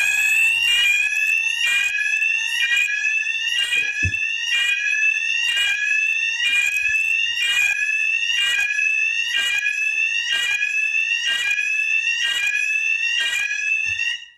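WES+ wireless alert unit's sounder going off after its push-button call point is pressed: a loud rising sweep tone repeating about once a second, the signal to shelter in place. It cuts off suddenly at the end, with a light knock of the unit being handled about four seconds in.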